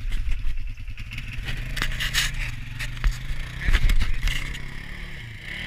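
Fingers scraping and knocking against an action camera's housing, over an ATV engine running with its pitch rising and falling.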